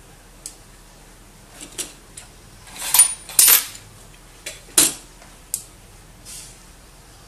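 Small hard pieces, ceramic processors and their metal caps, clinking and clattering against a metal plate in a string of sharp clicks, the loudest cluster about three seconds in and another sharp clink near five seconds.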